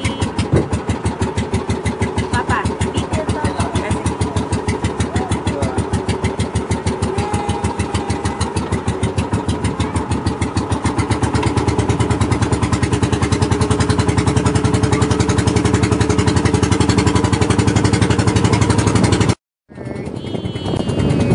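Outrigger bangka boat engine running with a fast, even pulsing beat as the boat gets under way, growing louder about halfway through. It breaks off for a moment near the end.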